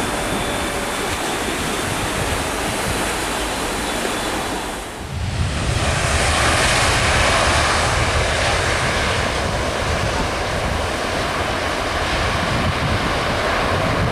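Jet airliner engines, a steady loud rush of noise. About five seconds in it dips briefly, then comes back louder and deeper with a rumble underneath.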